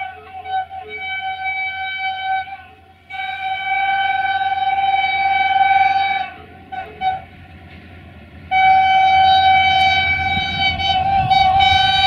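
Horn of CFR Class 64 diesel-electric locomotive 64-1357-4 sounding one steady note in repeated blasts: a long blast about three seconds in, a short toot about seven seconds in, and another long blast from about eight and a half seconds on. The low rumble of the approaching train grows near the end.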